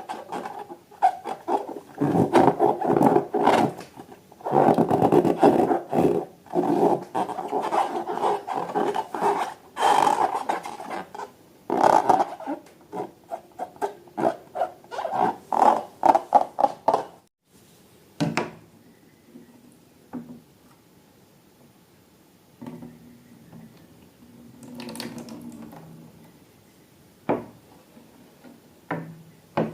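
Slime being mixed and scraped in a container: dense rasping and scraping with many small clicks for about seventeen seconds. After that it turns quieter, with only scattered clicks and taps.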